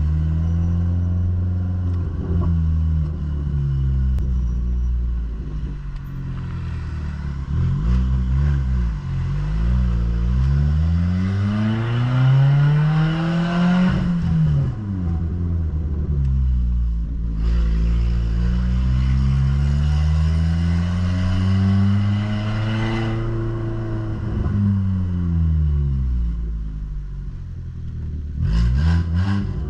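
Ford New Fiesta's exhaust, modified with a diffuser ahead of the mufflers, rumbling on the road: the engine note climbs under acceleration, drops sharply at a gear change about halfway through, climbs again and then falls away as the car slows. A few short sharp cracks near the end.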